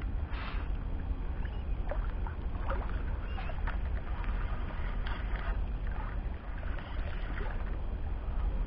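Wind rumbling steadily on the microphone, with light, irregular splashing and lapping of water at the shoreline.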